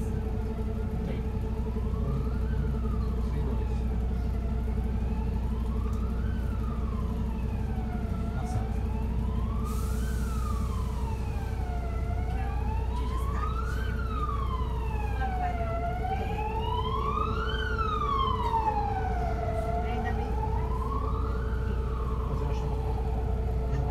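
An emergency vehicle's wail siren sweeps slowly up and down in pitch, about once every four seconds, and is loudest past the middle. It is heard from inside a city bus cabin, over the bus's engine running with a steady low drone.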